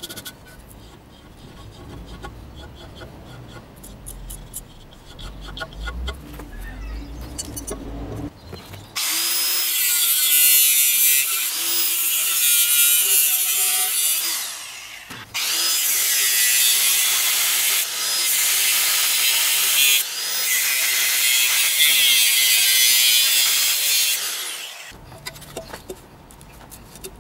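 Angle grinder with a cutting disc slicing a channel into the steel wall of a gas-bottle forge: a loud, high-pitched grinding hiss that starts about nine seconds in and runs about sixteen seconds, with a short break about halfway. Quiet handling noises come before it and light clatter after.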